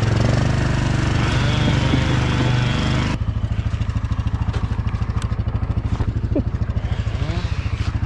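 Two-stroke chainsaw running at high revs for about three seconds, then dropping abruptly to a steady, evenly pulsing idle.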